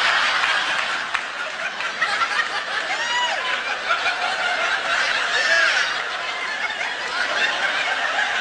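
Large live audience laughing at a punchline, a sustained wave of crowd laughter.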